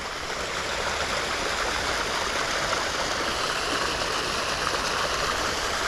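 Small shallow creek running over rocks: a steady rushing and trickling of flowing water.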